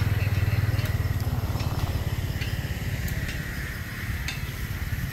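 A small engine running with a low, fast throb that slowly fades, with a few light ticks over it.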